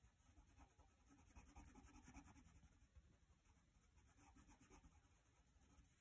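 Faint scratching of a colored pencil shading on paper, in two soft runs of strokes, about a second in and again about four seconds in.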